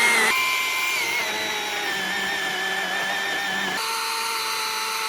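Small electric saw running with a steady high motor whine while cutting through tree roots; its pitch jumps twice, sagging slightly as it bites.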